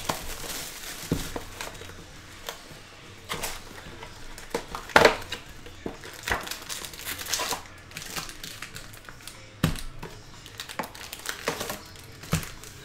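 Plastic shrink-wrap being torn off and crumpled from a sealed box of trading cards, with the cardboard box being opened. Irregular crinkling and rustling, with a few sharper crackles.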